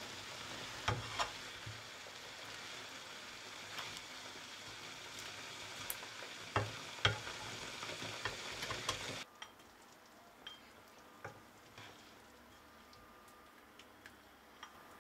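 A pan of creamy potato stew cooking on the hob with a steady hiss, while a plastic spatula stirs it and clicks against the pan. About nine seconds in, the hiss cuts off suddenly, and only a few soft knocks of the spatula follow.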